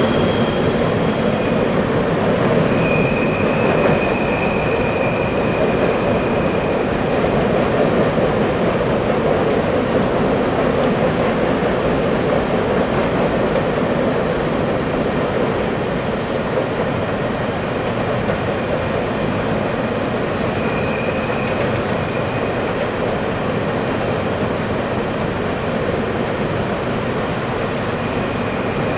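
Loaded coal cars of a freight train rolling steadily over a steel truss bridge: a continuous rumble of steel wheels on rail, with faint high squealing tones coming and going.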